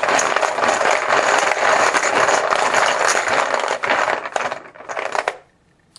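Chips being stirred and rattled around in a bucket by hand, a dense clatter of many small clicks that stops abruptly about five and a half seconds in, as a chip is drawn.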